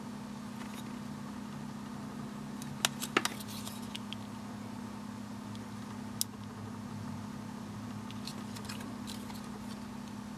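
Light clicks from eyeglass frames being handled and turned in the fingers: a quick cluster of three or four about three seconds in and a single click about six seconds in. A steady low hum runs underneath.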